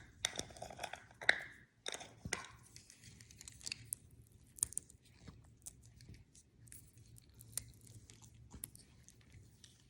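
African grey parrot chewing and crunching a small food reward with its beak: irregular small crunches and clicks, busier in the first couple of seconds.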